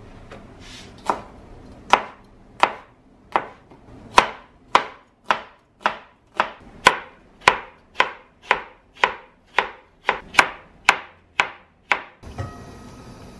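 Kitchen knife slicing an onion on a plastic cutting board: a steady run of about nineteen chops, a little under two a second. Near the end the chopping stops and a steady hiss takes over.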